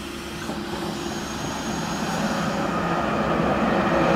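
Electric locomotive approaching and passing close by, growing steadily louder. A thin high whine runs through the middle, and a steady hum comes in near the end as it draws level.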